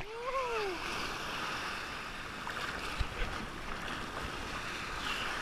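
Ocean surf washing and foaming around a low-mounted action camera at the waterline, with wind buffeting the microphone. A short rising-then-falling tone sounds near the start.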